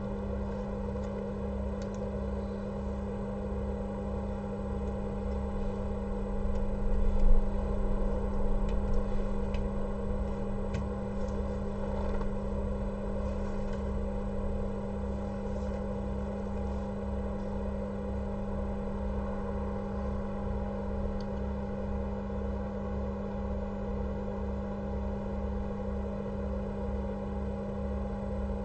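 Steady electrical hum from bench equipment, with a low throb pulsing about twice a second and a brief swell in loudness about seven seconds in.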